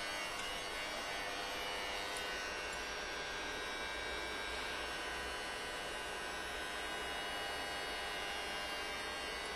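CNC vertical machining center running, giving a steady electrical hum with many high, thin whining tones layered over it.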